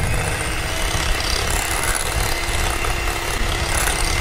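Electric hand mixer running steadily, its beaters whipping dalgona coffee mixture in a glass bowl: an even whir with a steady motor whine.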